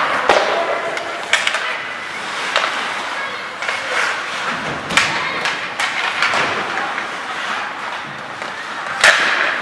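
Ice hockey play on a rink: skates scraping on the ice, with sharp knocks of stick and puck several times and the loudest one near the end, under distant voices of players and spectators.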